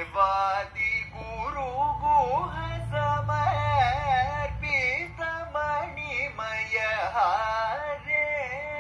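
A man's voice singing a Carnatic kriti in raga Shree without accompaniment, holding long notes that oscillate and slide between pitches in heavy gamaka ornaments.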